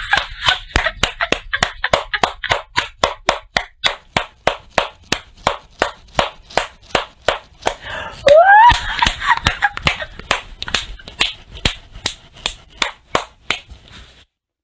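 A woman doing a laughter exercise, laughing out loud while she claps her hands in a steady rhythm of about three claps a second. Her laughter is loudest about eight seconds in, and the clapping stops just before the end.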